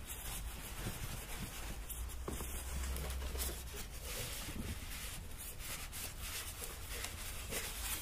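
Scraping and rubbing of a boxed electric space heater being pulled out of its tight box and packing, with scattered faint scratches.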